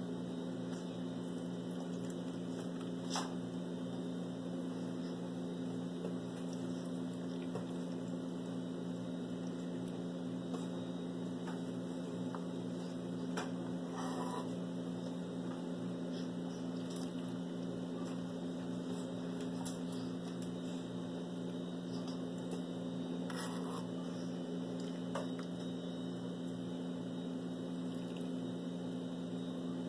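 A steady low electrical hum, with a few faint clinks of a ladle against the saucepan and mould as a milky gelatin mixture is ladled into a silicone mould.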